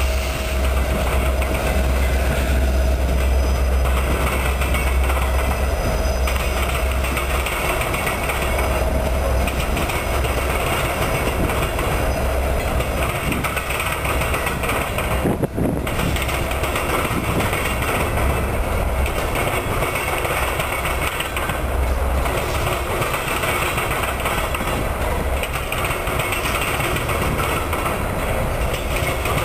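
A BNSF freight train passes: the deep engine rumble of its diesel locomotives for the first several seconds, then the steady rolling noise of hopper cars' wheels on the rail as the train goes by.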